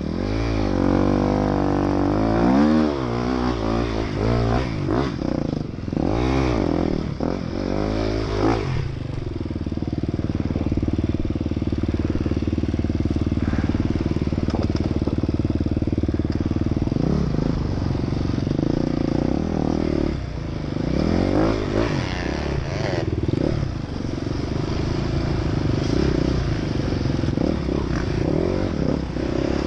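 Enduro motorcycle engine heard close from on board the bike. It revs up and down over and over for the first nine seconds or so, then runs at a steadier pitch. More rises and falls come in the second half.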